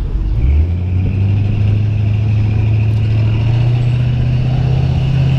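A large truck's engine running at a steady pitch. From about half a second in there is a constant hum with a higher whine over it, and a low rumble of wind on the microphone underneath.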